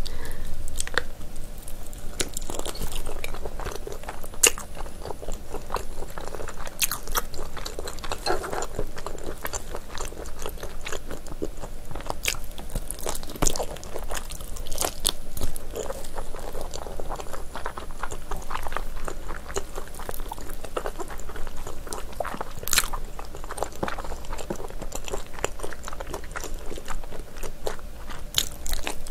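Close-up eating sounds of chewy, gelatinous spicy braised ox foot being bitten and chewed: wet, sticky mouth noises with many short, irregular clicks.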